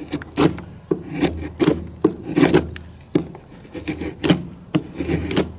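Knife shaving thin curls off a hard cedar stick: quick repeated rasping strokes of a Scandi-ground blade through the wood, two or three a second.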